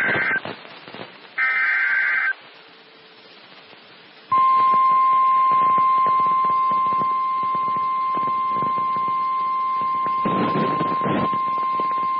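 EAS SAME header data bursts: the tail of one and then one more full burst of screeching digital tones lasting about a second. After a gap of about two seconds, the NOAA Weather Radio warning alarm sounds as a single steady high tone, held from about four seconds in to the end, over radio hiss and static.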